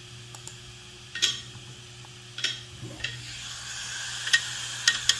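Uncovered hard disk drive working: a few sharp clicks, then from about halfway a rising hiss with the read/write head clicking more and more often toward the end.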